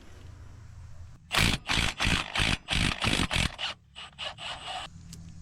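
A large wrench being worked back and forth on a rusted, seized bolt: about eight loud, harsh, metallic scraping strokes in quick succession, then several fainter ones, over a steady low hum.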